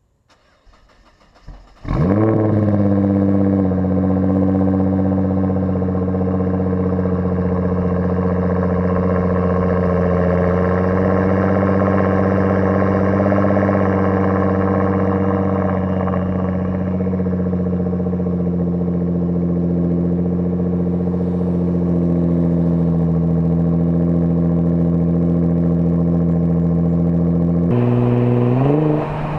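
Cold start of a 2009 Nissan GT-R's twin-turbo V6 through an AAM mid pipe and variable exhaust: it fires about two seconds in, flares, and settles into a steady, loud high cold idle. Near the end the revs rise in a few short steps.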